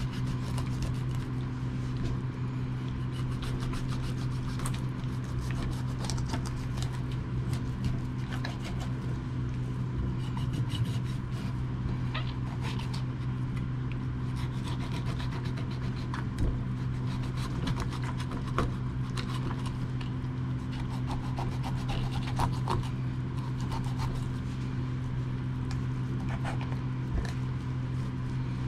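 Kitchen knife sawing along the backbone of a Korean rockfish to cut off a fillet: a repeated rasping scrape of the blade through flesh and rib bones, with short clicks against the plastic cutting board. A steady low hum runs underneath.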